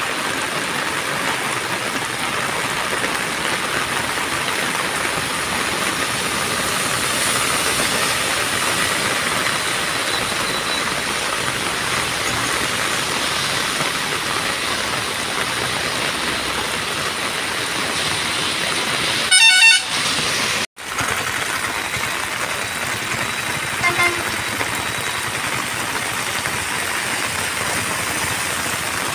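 Steady hiss of heavy rain on a road, with traffic splashing through standing water. About two-thirds of the way through, a vehicle horn sounds once for about half a second, the loudest sound, and a few seconds later gives a short, fainter toot.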